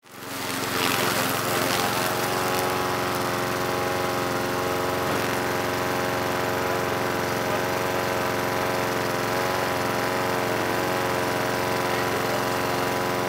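Petrol walk-behind lawn mower engine running steadily at a constant speed.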